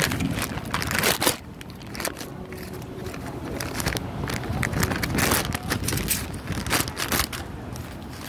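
Plastic courier mailer crinkling, crackling and tearing as it is handled and slit open with a knife, in irregular bursts with the loudest near the start and about a second in.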